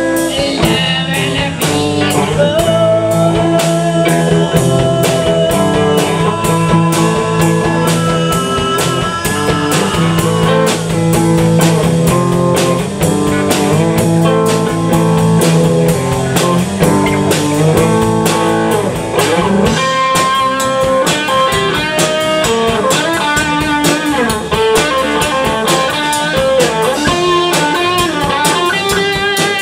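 Live blues-rock band playing: electric guitars over a drum kit keeping a steady beat, with no vocals. About two-thirds of the way through, the low end thins out and higher guitar lines come forward.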